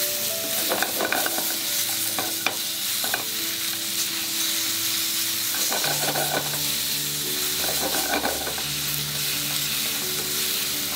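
Vegetables sizzling in olive oil in a frying pan, with eggplant, zucchini, bell pepper, baby corn, cherry tomatoes and red chili sautéing. A utensil stirs and scrapes the pan in short bouts every couple of seconds.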